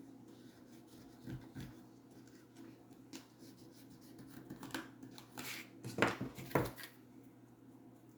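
Pencil scratching faintly on cardboard as it is drawn around a small plastic tub, with a few louder knocks and handling sounds about six seconds in.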